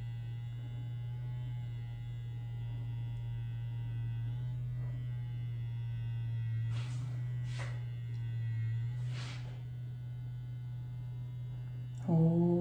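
OA Pureline silicone vibrating facial cleanser's motor humming steadily as it is pressed against the face, its tone shifting slightly a few times. Three brief soft hisses come about seven to nine seconds in.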